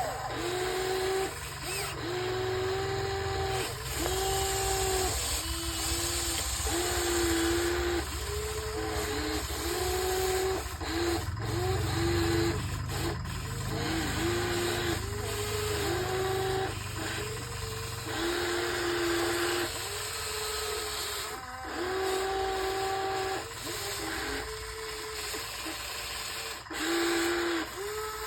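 Radio-controlled excavator's hydraulic pump and motors whining in many short bursts, starting and stopping every second or so as the controls are worked while it digs sand, over a constant low rumble.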